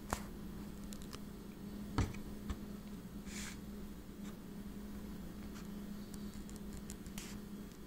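Quiet room tone with a steady low hum, broken by a few sharp knocks, the loudest about two seconds in, and two brief soft rustles.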